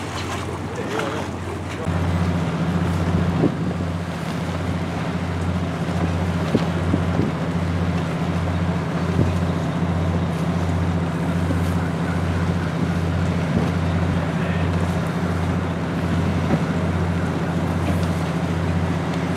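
A ship's engine running close by: a low drone with a slow, even throb, starting suddenly about two seconds in. Wind buffets the microphone.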